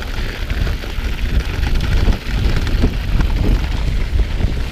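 Mountain bike ridden along a packed-snow trail: steady rumble of the tyres and frame, with scattered knocks and rattles over bumps and wind buffeting the microphone.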